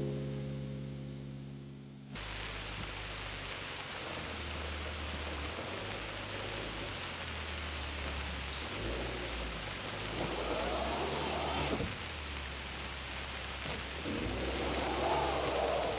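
The last notes of a guitar-backed music track die away. About two seconds in, a steady outdoor ambience cuts in: a constant high hiss over a low rumble.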